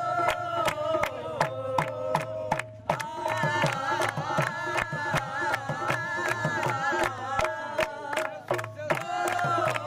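A group of voices singing a song together, with hand-clapping keeping a steady beat.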